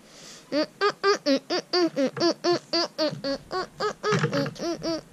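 A child's voice making a long run of short, even syllables, about four or five a second, each rising and falling in pitch, in a giggling, sing-song way.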